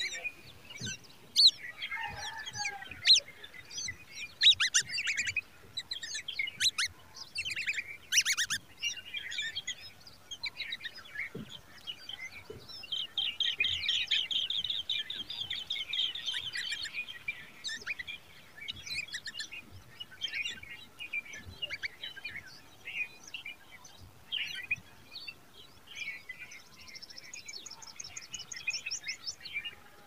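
Nestlings chirping and begging while an adult bird feeds them at the nest: many short, high chirps, with a fast trill of repeated notes about halfway through and another, higher one near the end.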